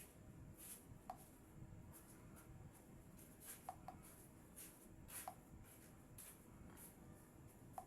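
Near silence: faint room tone with a few soft, brief ticks and light rustling.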